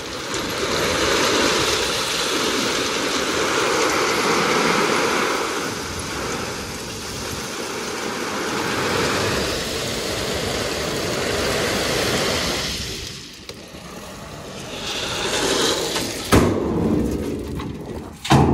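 Crushed stone pouring and sliding out of a tipper truck's raised steel body: a steady rushing hiss over the truck's diesel engine running. The flow thins out about thirteen seconds in, then picks up again, with a sharp knock about sixteen seconds in.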